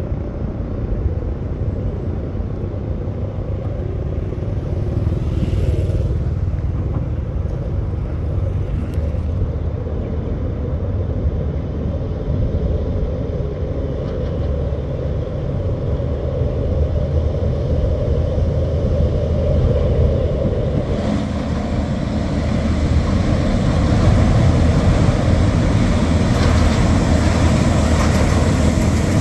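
Diesel locomotive of a passenger train approaching over a steel truss bridge, a steady low engine rumble that grows louder about twenty seconds in, with a motorcycle passing close by at the start.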